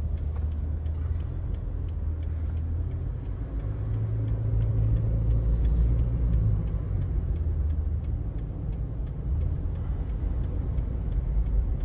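Steady low rumble of a car's cabin while it drives slowly on a snowy road, swelling a little in the middle, with a faint regular ticking.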